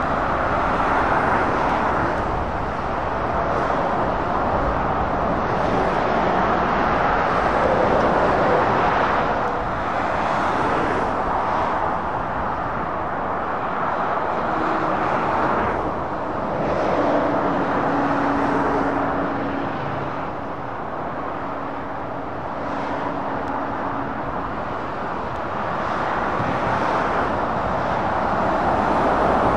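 Road traffic of heavy lorries and cars driving past. The tyre noise swells and fades as each vehicle goes by, and a steady low engine note comes in for several seconds past the middle.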